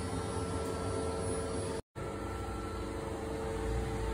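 Freshly rebuilt Tofaş Doğan 1.6 SLX engine running steadily at idle, with a brief complete break in the sound just before the middle.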